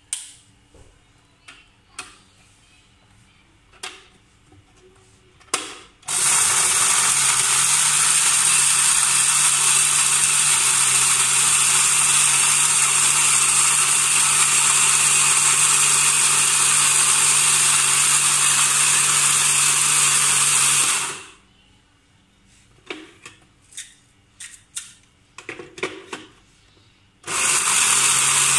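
Westpoint electric blender's grinder jar running full of dry roasted whole spices: a loud steady motor whir with grinding noise for about fifteen seconds, then it stops and starts again near the end. Before and between the runs, clicks and knocks of the jar being set and handled.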